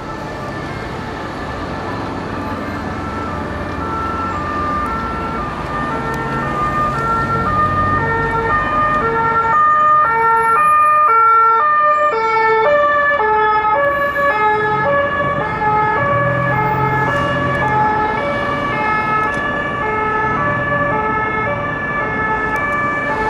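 Two-tone emergency-vehicle siren alternating between a high and a low note, growing louder toward the middle as it comes closer, over a steady high whine.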